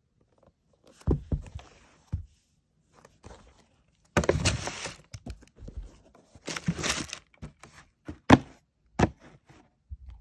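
A sneaker and its tissue paper being handled in a cardboard shoebox: thumps from handling, then the paper rustles in two longer stretches, then a few sharp knocks as the lid goes on, the loudest about eight seconds in.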